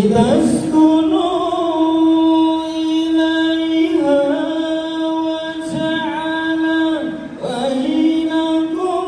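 A single voice singing long, drawn-out melodic phrases, each held note wavering slightly, with short breaks between phrases every three to four seconds. The singing starts abruptly, at full level.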